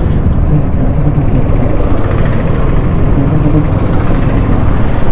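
Yamaha R15 motorcycle under way, its engine running steadily under a loud low rumble of wind on the microphone.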